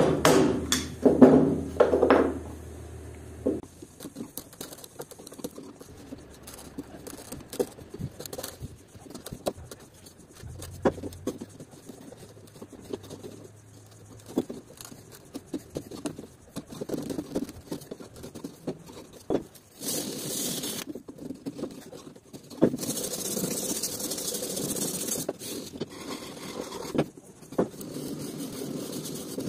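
Flat wood chisel scraping and paring the end grain of a turned walnut cylinder by hand, with knocks and small taps of the wood and tools on the workbench. Several loud knocks come in the first few seconds, and longer stretches of scraping come near the end.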